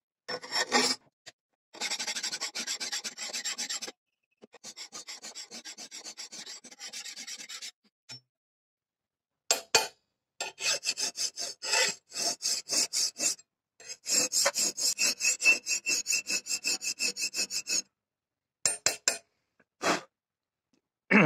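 Hand file scraping along the edge of a steel knife blade cut from a plough disc and clamped in a vise: runs of quick rasping strokes broken by short pauses, with a faint steady ring under the longer runs. The steel is still annealed, and the edge bevel is being filed in by hand before hardening.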